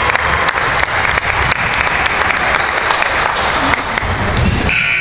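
Gym game noise: spectators talking and a basketball bouncing on the hardwood floor. Near the end a scoreboard buzzer starts sounding one steady, continuous tone.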